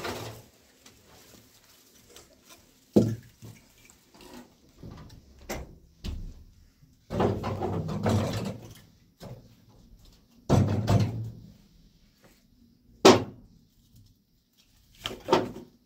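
Firewood being pushed into a sheet-metal barrel stove: irregular knocks, scrapes and clanks of wood and metal, with a sharp clank a little after 13 seconds.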